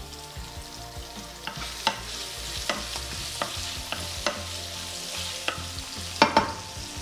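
Sliced red onions frying in oil in a nonstick pan, sizzling, while a wooden spatula stirs them and scrapes the pan several times, the loudest strokes near the end.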